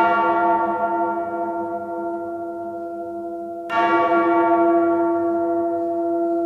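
A church bell tolling twice, about four seconds apart, each strike ringing on and slowly fading.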